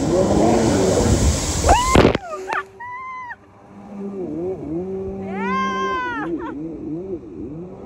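Water spray blasting onto the camera for about two seconds and cutting off suddenly. Then a Kawasaki X2 stand-up jet ski's two-stroke engine revs up and down, with two high whines that rise and fall in pitch, the second about a second long.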